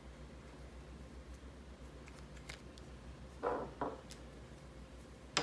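Faint clicks and taps of small plastic starter-gearbox parts being handled, over a low steady hum, with a short louder handling sound about three and a half seconds in.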